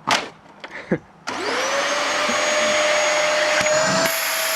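Dyson vacuum cleaner switched on about a second in after a short knock: its motor whine rises quickly to speed and then runs steadily, with a slight shift and an added high whine near the end.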